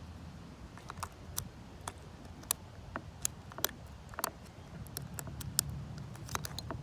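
Lock pick and tension tool clicking irregularly inside a vintage Lockwood 570 oval pin-tumbler mortise cylinder as the pins are worked, over a low muffled wind rumble on the jacket-covered microphone.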